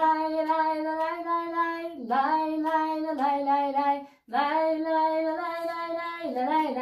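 A children's song about the weather being sung in a high, child-like voice, in long held notes that step up and down in pitch; the singing breaks off briefly twice.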